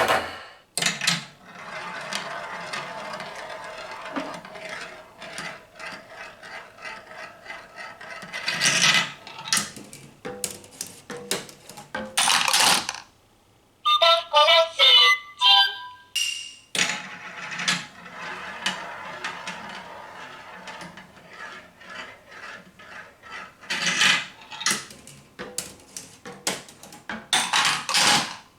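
Glass marbles rolling and rattling down a plastic toy marble-run track, with sharp clacks as they drop and strike pieces. A short melodic tune plays briefly about halfway, between two long stretches of rolling.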